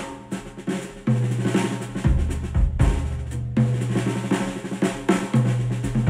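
Drum-led instrumental music: a drum kit's snare and bass drum hits over held bass notes, played back through hi-fi loudspeakers and picked up by microphones in the listening room.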